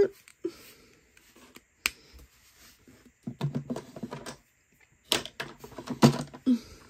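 Small clicks and taps from handling a plastic makeup stick and its cardboard box on a desk, with one sharp click about two seconds in and a cluster of clicks and rustling after the halfway point.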